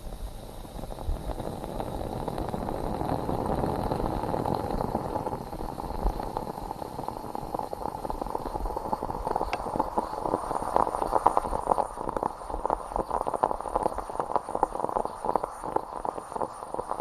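Stovetop moka pot brewing: coffee bubbling up into the upper chamber, which turns, about ten seconds in, into a dense crackling, sputtering gurgle, the stage that marks the end of the brew.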